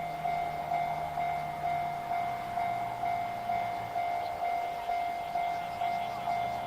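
Level-crossing alarm bell ringing evenly, about two strokes a second. A faint low hum runs underneath and drops in pitch about two seconds in.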